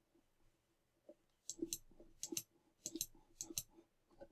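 Computer mouse clicking: about four quick double clicks in a row, each a pair of short, light clicks, with a single faint click before and after them.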